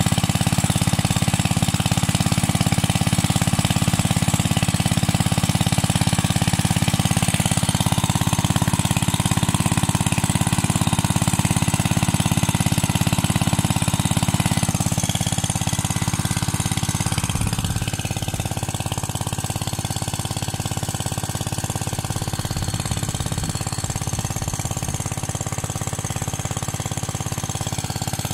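The 6.5 HP four-stroke petrol engine of a Greenleaf WP-30 water pump, running steadily. It gets a little quieter after about halfway.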